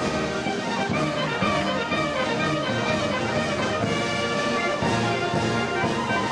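Brass-led orchestral or band music, with trumpets and trombones, playing steadily.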